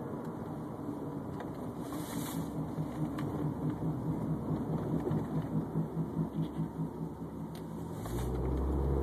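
Subaru Baja's worn press-in wheel bearing making a rhythmic wawawawa throb while driving, over road and engine noise: the rollers are running over a flat spot worn into the bearing race. A steadier, louder low hum comes in near the end.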